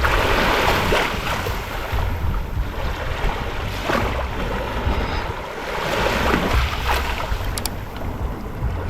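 Gentle ocean waves lapping and washing up on the shore, the wash swelling and falling back several times, over a low rumble of wind on the microphone.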